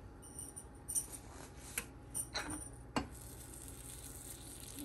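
A few light clinks of a spatula against a nonstick frying pan, then, from about three seconds in, a faint sizzle of butter melting as it is spread over a cooking pancake.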